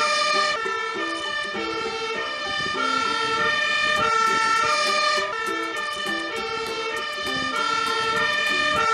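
Two-tone siren of a Magirus aerial-ladder fire truck, alternating steadily between a high and a low tone, each held a little over half a second.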